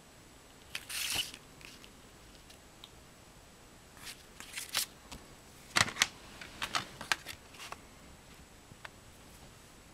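Paper rustle of a CD booklet being closed and handled about a second in, then a run of sharp clicks and taps from a plastic CD jewel case as the booklet is put back in; the loudest clicks come around the middle.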